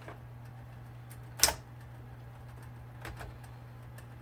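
Smith-Corona Electra 210 electric typewriter's motor humming steadily, with one loud sharp clack about a second and a half in and softer clicks near the start and about three seconds in, as its keys and levers are worked.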